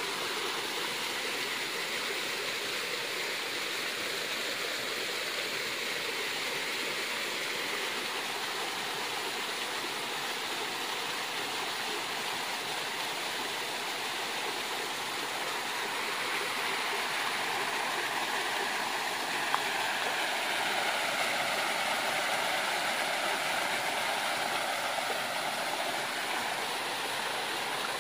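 Waterfall and stream water rushing steadily, getting a little louder from about 17 seconds in.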